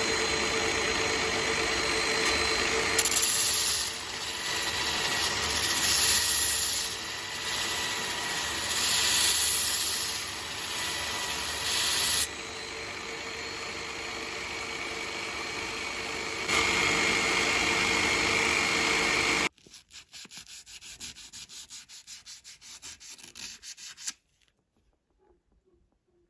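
Steady abrasive grinding or sanding, in several takes that switch abruptly, as rocker arms are resurfaced. It gives way about twenty seconds in to a few seconds of quieter, rapid, even ticking.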